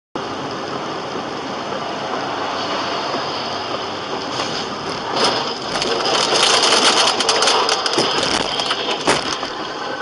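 Road noise of a moving car: a steady rushing noise that grows louder and harsher about five seconds in, with a run of knocks and rattles and one sharp knock near the end.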